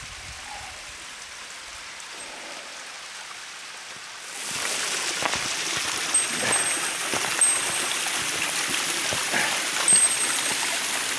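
Mountain stream rushing over rocks, getting much louder about four seconds in, with footsteps on dry leaves and stones.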